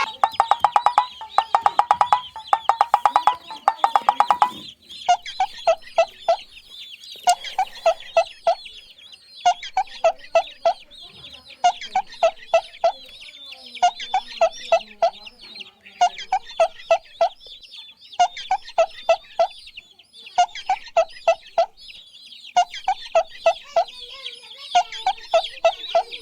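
Chickens clucking in short runs of quick clucks, a run about every two seconds, over continuous high-pitched peeping of chicks. For the first four seconds or so there is a faster, denser run of clucks.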